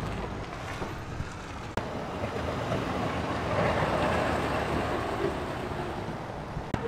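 Motor vehicle running, getting louder about halfway through and then fading, with wind rumbling on the microphone.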